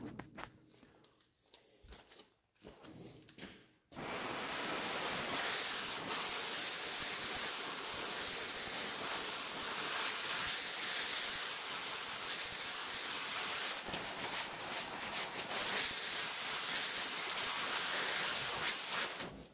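A few faint knocks, then about four seconds in the flame of an oxy-fuel cutting torch starts a steady hiss as it heats a steel tube red hot for bending. The hiss cuts off near the end.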